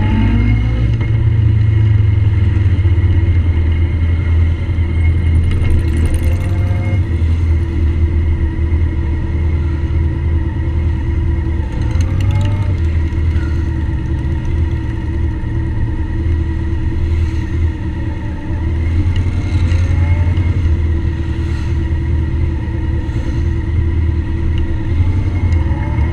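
Motorcycle engines running steadily under way in a group ride, a deep steady drone with wind noise over it. A few short rising engine notes come about 6 and 12 seconds in and again near the end.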